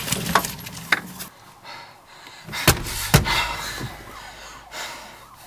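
Jeep door being handled and slammed shut: two sharp bangs about half a second apart near the middle, after a few lighter clicks, with faint wavering tones behind.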